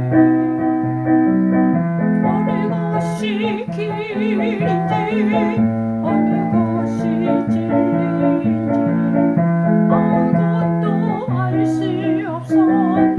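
Gospel song: a keyboard plays steady piano-toned chords, and a woman's voice sings wavering, vibrato-laden phrases over it in a few stretches.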